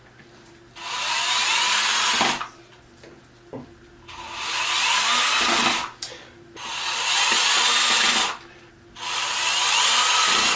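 Power drill/driver running in four bursts of about a second and a half each, driving four fasteners into the side of a drawer.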